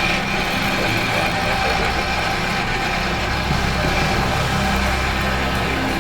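Road roller engine running steadily.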